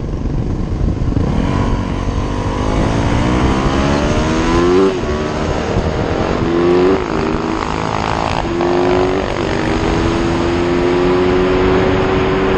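Yamaha YZ450 dirt bike's single-cylinder four-stroke engine accelerating hard through the gears. The pitch climbs, drops sharply at three upshifts about five, seven and nine seconds in, then holds a steady high note at speed.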